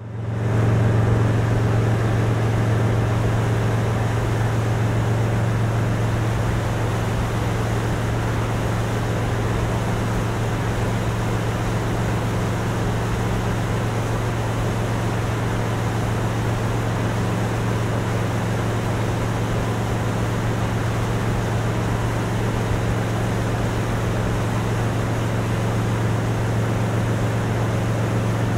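Motorboat running steadily at cruising speed: a constant low engine drone over the rush of water and air. It fades in at the start and holds an even level throughout.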